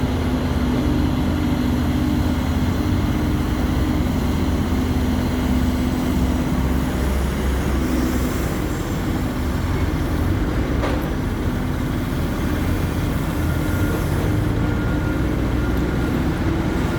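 Hidromek 140LC tracked excavator running steadily, its diesel engine and hydraulics working, with a steady hum over the engine note. A single sharp knock comes about eleven seconds in.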